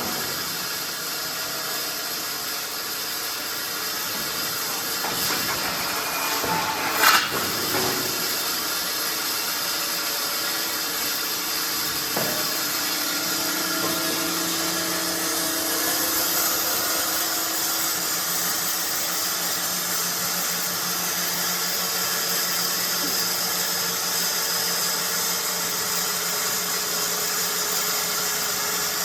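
Wood pallet dismantling machine running with a steady hiss, with one sharp knock about seven seconds in and a faint low hum joining from about halfway.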